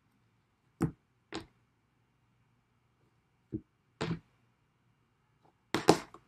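Tarot cards being laid down on a table: a few separate light taps spread out, then a quick cluster of taps near the end.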